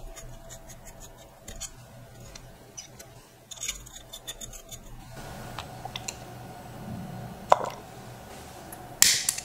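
Small metallic clicks and taps as the brass fittings of a model steam engine's boiler are handled. After a few seconds a faint steady hiss sets in, with one sharp click about two-thirds of the way through and a brief loud hiss near the end as the gas burner in the firebox is lit.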